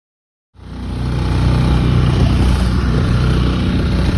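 A dinghy's outboard motor running steadily under way, with rushing noise over it. It cuts in suddenly about half a second in, after dead silence.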